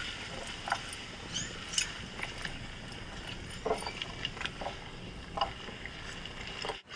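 Faint ambient background: a steady high-pitched hum over a low rumble, with a few short chirps scattered through it and a brief dropout near the end.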